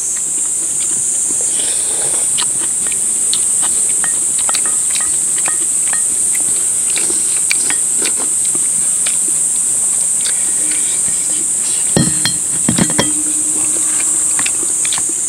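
Steady high-pitched drone of summer insects, with frequent small clicks and clinks of metal chopsticks and spoons against stainless-steel bowls, and a few louder knocks about twelve seconds in.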